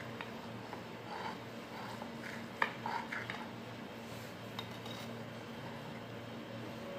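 Knife blade clinking and scraping against a ceramic plate as it cuts through a potato omelette: a few light clicks, the sharpest about two and a half seconds in, over a steady low hum.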